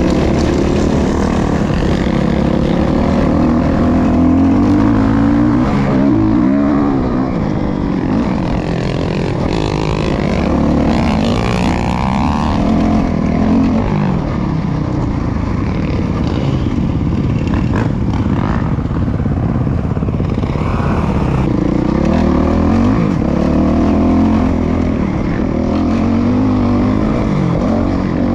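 2019 Suzuki RMZ450 single-cylinder four-stroke dirt bike engine with a Yoshimura RS-12 full exhaust, ridden hard: the engine pitch rises and falls again and again as the throttle is opened and closed and the gears change.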